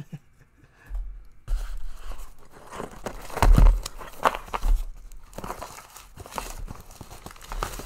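Packing material being crumpled and pulled out of a shipping box: irregular rustling and crinkling with handling bumps, starting about a second in and loudest about three and a half seconds in.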